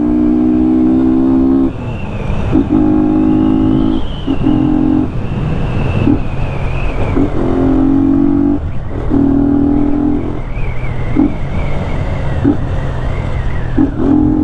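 Yamaha Fazer 250's single-cylinder engine running without its air filter, under way on the road. Its note holds steady for a second or two at a time, broken by short dips throughout.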